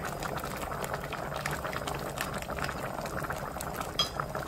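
Thick rice-and-mallow porridge bubbling steadily in a glass pot, with many small pops. A single light knock comes about four seconds in as a wooden spoon stirs it.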